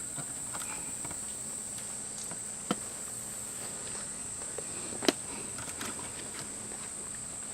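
Steady high-pitched chorus of insects, with two short clicks, one a little over a third of the way in and one about two thirds in.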